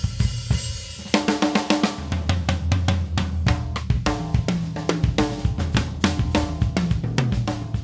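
A Spinelli drum kit played with sticks: a cymbal rings through the first second, then rapid strokes run across the toms and snare over the bass drum, several drum pitches sounding in quick fills.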